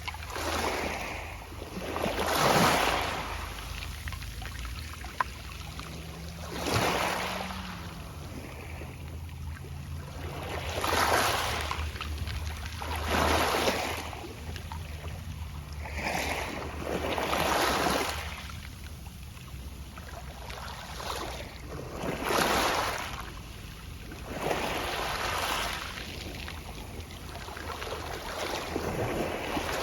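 Small sea waves washing onto a pebble beach, one surge of hiss every three to four seconds with the pebbles rustling as each wash draws back. A steady low rumble runs underneath.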